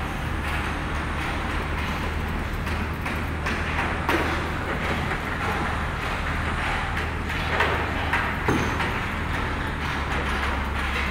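Diesel engine of an excavator-based piling rig running steadily, with a few short knocks from the rig about four and eight seconds in.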